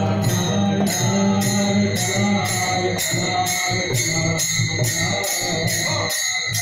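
Devotional bhajan music: hand cymbals struck in a steady beat, about two to three strokes a second with a bright ring, over a barrel drum and voices. The music breaks off abruptly near the end.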